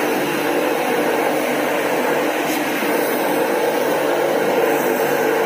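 Btali electric high-pressure washer running steadily, its motor-driven pump humming under the hiss of the water jet striking the shed floor.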